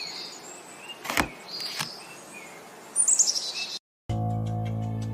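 Birds chirping in quick falling series over a faint hiss, with two short knocks about one and two seconds in. Near the end the sound cuts out for a moment and music with sustained low notes starts.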